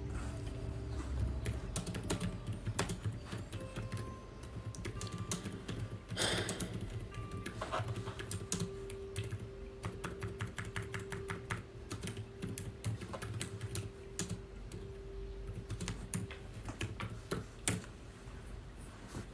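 Typing on a laptop keyboard: irregular key clicks with quick runs of keystrokes, and a brief rustle about six seconds in.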